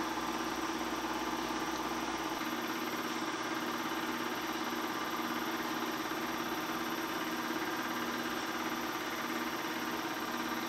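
Bell & Howell 253-A 8mm film projector running: a steady mechanical whir with a regular low pulse from the film transport.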